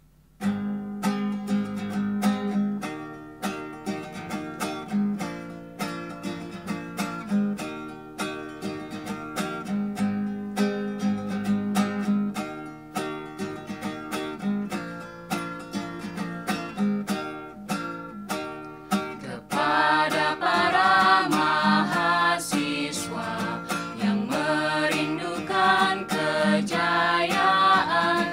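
Song opening with plucked acoustic guitar picking a repeating pattern; about two-thirds of the way through, a singing voice comes in over the guitar.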